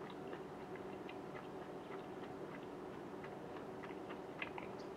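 Faint ticking clicks, somewhat irregular at roughly four a second, over a low steady hum.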